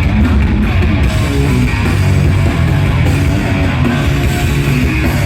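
Loud heavy rock music with distorted electric guitar and drums.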